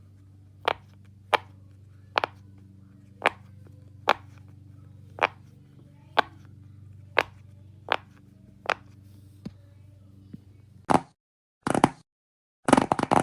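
A fidget toy clicking about once a second, a dozen sharp clicks over a steady low hum. The hum cuts off about eleven seconds in, and three short scratchy bursts follow.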